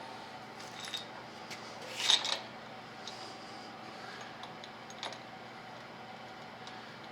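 A few light metallic clinks and taps as motorcycle handlebar parts and hardware are handled and set in place, the loudest about two seconds in, over a steady low hum.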